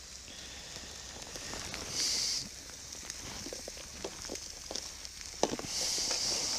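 Pork belly frying in a frying pan: a short sizzle about two seconds in, a few light clicks and taps, then steady sizzling that starts near the end.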